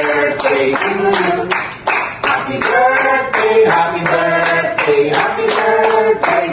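A group of voices singing a birthday song together, with hands clapping along to a steady beat, about three claps a second.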